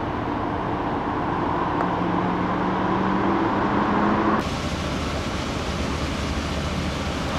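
A steady mechanical rumble of engines and traffic with a droning hum. The sound changes abruptly about four seconds in, from a hum with two steady tones to a brighter hiss over a low drone.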